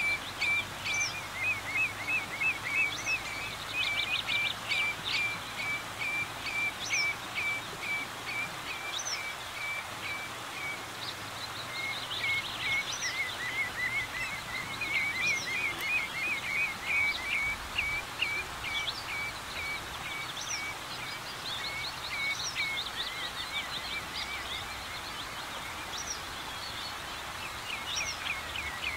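Common redshank calling: a long run of short, sharp piping notes, several a second, now and then quickening into faster bursts.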